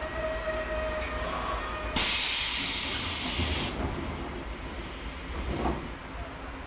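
Seibu 571 series electric train heard from on board: a low rumble, then about two seconds in a sudden hiss of compressed air from the train's pneumatic equipment, lasting under two seconds. After that the car is quieter, with one short knock near the end.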